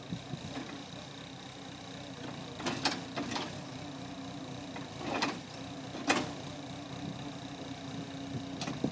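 Cat skid-steer loader's diesel engine running steadily, with about five sharp knocks scattered over the stretch.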